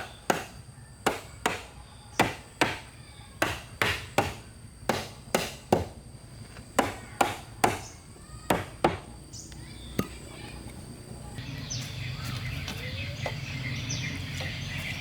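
Wood being chopped by hand with a blade: about twenty sharp strokes at roughly two a second, stopping about nine seconds in, with one last stroke a second later. After that, a steady outdoor background hiss with high chirps.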